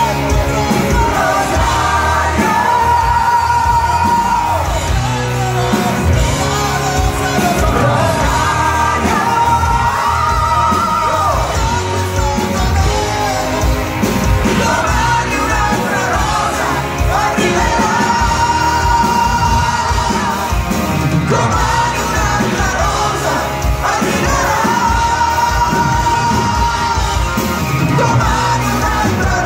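Live band playing a song over the PA: electric guitar and drums under loud sung vocals from several singers, with long held notes that recur every few seconds.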